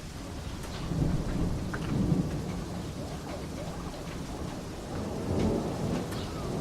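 Steady rain with low rolling thunder that swells twice, about a second in and again near the end, and scattered drops ticking.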